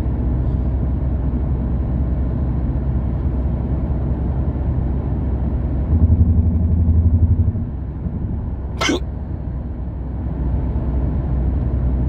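Steady low rumble of a moving car heard from inside the cabin, swelling louder for about two seconds midway, with a single sharp hiccup a little before nine seconds in.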